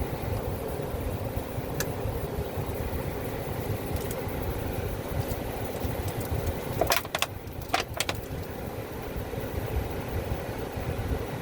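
An older Carrier air-conditioning system running with a steady low hum. A few sharp clicks or taps come in about two seconds in and again around seven and eight seconds in.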